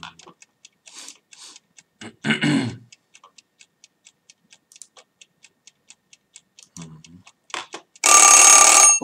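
A clock ticking rapidly and evenly, about five ticks a second, then an alarm clock ringing for about a second near the end. A short, low voice-like sound comes about two seconds in.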